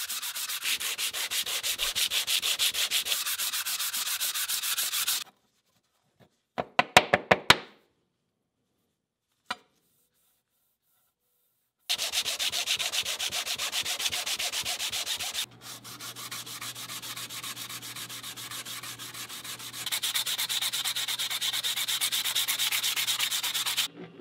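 Abrasive pad and sanding block rubbed rapidly back and forth by hand along a steel ruler blade, polishing it: a hissing scrape in quick strokes. About seven seconds in the rubbing stops for a brief run of sharp clicks, then a single click, and later resumes with a low steady hum beneath it.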